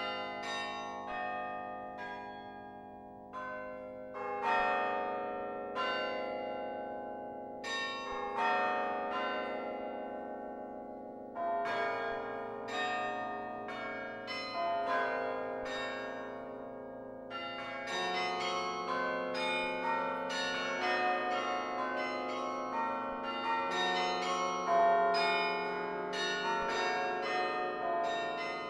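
The 72-bell Laura Spelman Rockefeller Memorial Carillon played from its baton keyboard: a melody of struck bell notes that ring on and overlap. The notes are sparse at first and grow denser and busier from about halfway in.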